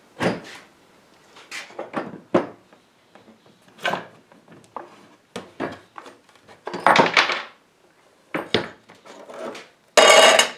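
Heavy wooden oak table extension slides knocked and shifted on a bench: a string of wooden knocks and clunks. Near the end comes a loud, ringing metal clatter as screws drop into a tin can.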